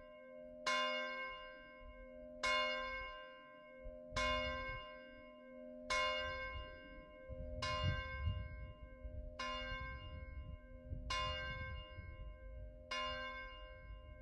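A single bell tolling, struck eight times on the same note about every second and three-quarters, each stroke ringing on into the next. A low rumble runs underneath from about four seconds in.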